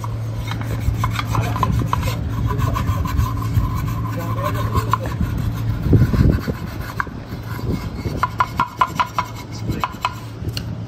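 Hand scraping and rubbing of old sealant and grime off the flange of a steel engine oil pan, in short back-and-forth strokes that come quickest near the end, over a steady low hum. It is the sealing surface of a leaking oil pan being cleaned for resealing.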